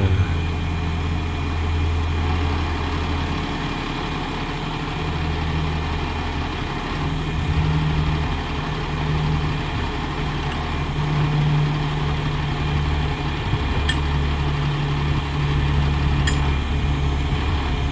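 Crane truck's engine running steadily with the PTO engaged, driving the crane's hydraulics while the hoist cable is let down; the low engine note swells and eases a little as the controls are worked.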